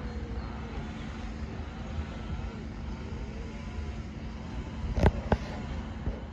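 Steady outdoor background rumble with a faint constant hum, broken by two sharp knocks about five seconds in.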